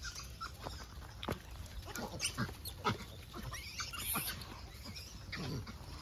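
Gray langur troop crowding in to be fed, making short scattered calls and small scuffling sounds.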